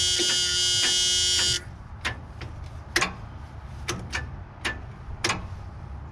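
Gehl 4625SX skid steer's dash warning buzzer sounding with the key switched on, cutting off suddenly about a second and a half in. It is followed by a run of sharp clicks, roughly two a second.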